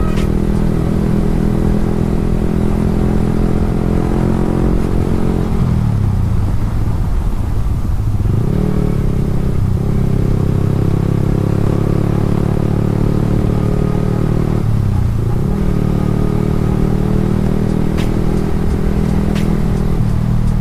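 Yamaha R15 V3's single-cylinder 155 cc engine running at riding speed. Its note drops and climbs back up twice, about a third of the way in and again about three-quarters of the way in.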